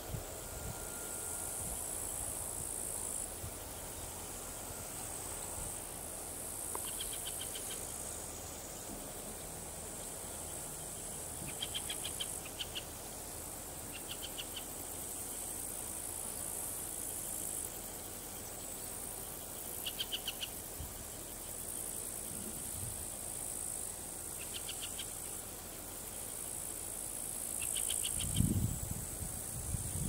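Insects chirring in the open countryside: a high, shrill buzz that comes in stretches of a few seconds, with short bursts of rapid ticking every few seconds. A low rumble comes in near the end.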